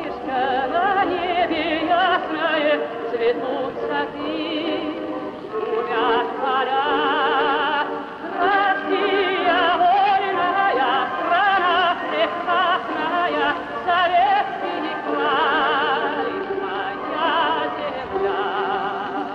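Film score music: operatic singing with long, wavering vibrato notes over an orchestral backing.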